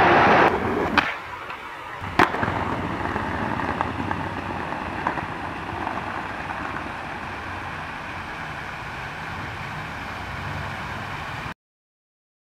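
Skateboard wheels rolling over stone plaza paving, with a sharp clack of the board about two seconds in and a lighter click just before it. The rolling noise runs steadily, then cuts off abruptly near the end.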